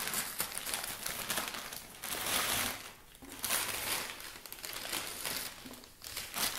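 Brown paper insulation liner inside a cardboard meal-kit box crinkling and rustling as it is pulled and folded back by hand, in a few bursts with short pauses, loudest about two seconds in.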